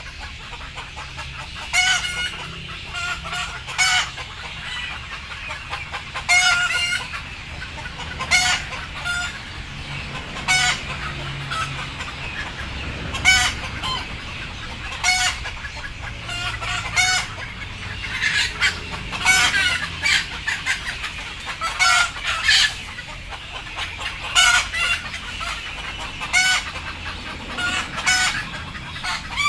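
Chickens clucking, short calls repeating every second or two, some coming in quick pairs or runs.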